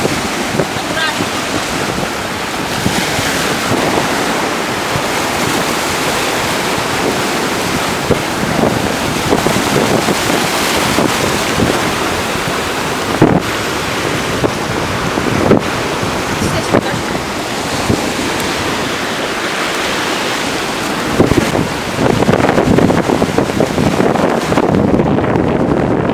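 Sea waves washing in continuously, with wind buffeting the microphone and a few sharp knocks of wind on it.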